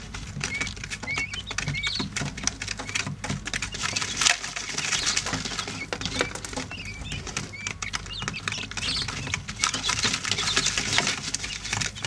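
Quail chicks pecking and scratching in loose bedding, a rapid patter of small clicks, with short high peeps now and then.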